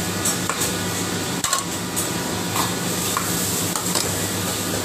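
Cleaver knocking and chopping on a thick wooden chopping board, several scattered knocks with the loudest about a second and a half in, over a steady low hum.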